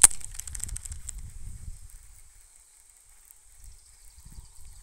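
Fishing reel and rod being handled: a sharp click, then a quick run of fading ticks for about a second, then faint low rustling.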